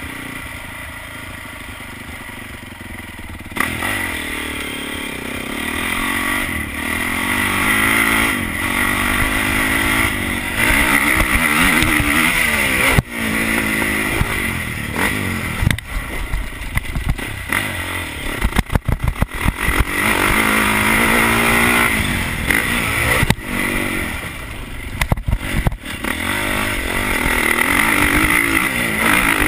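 Motocross bike's engine heard on board while riding a dirt track. It runs quietly at first, then opens up hard about three and a half seconds in. Its pitch then keeps rising and falling with gear changes and repeated throttle chops.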